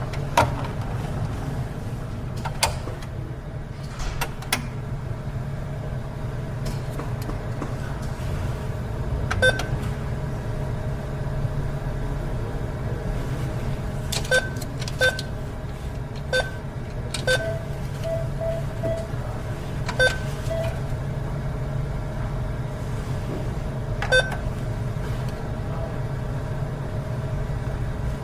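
ATM keypad buttons being pressed one at a time at an uneven pace, each press a sharp click; from about a third of the way in, most presses also give a short electronic beep. A few brief lower tones come near the middle, and a steady machine hum runs underneath throughout.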